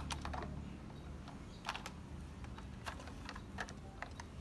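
Small plastic toys being handled: scattered light clicks and taps, a few together at the start and then single ones every second or so.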